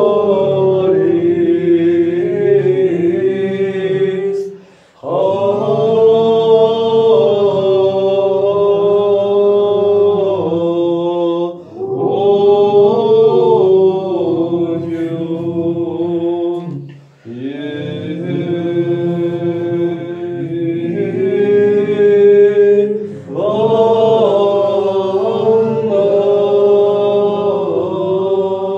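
Sung Armenian church chant: a slow melody in five long phrases of about five to six seconds each, with a short break between phrases.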